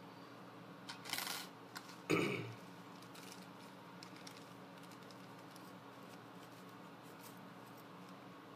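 Handling of small metal lock-pick tension wrenches and their packaging: a brief rustle, a louder knock about two seconds in, then faint light clicks and ticks.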